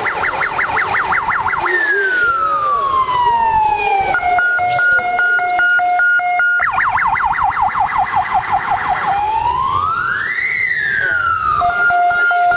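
Electronic siren cycling through its patterns, each held about two and a half seconds: a fast yelp, a long falling wail, a rapid high-low two-tone, the yelp again, a rise-and-fall wail, then the high-low tones again.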